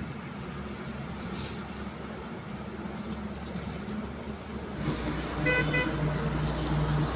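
A motor vehicle's engine hum comes in about five seconds in, with a short horn toot just after.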